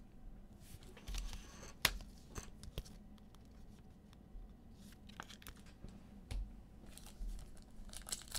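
Trading card packs and cards being handled: wrappers rustling and tearing, with scattered sharp clicks and taps, the loudest about two seconds in.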